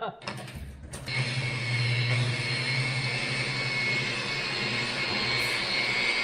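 Handheld electric buffer with a foam pad, started about a second in and then running steadily while buffing old truck paint, with an even whine and hum.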